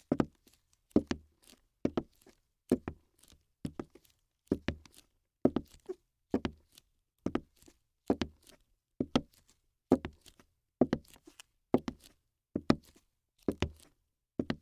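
Steady footsteps, each step a sharp click with a low thud, at an even pace of a little over one step a second.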